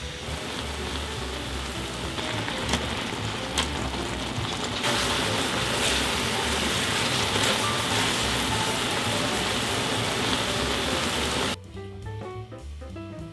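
Spicy gochujang sauce with rice cakes sizzling and bubbling in a frying pan, with a wooden spatula stirring and scraping in the first few seconds. The sizzling gets louder about five seconds in and cuts off suddenly near the end, leaving background music.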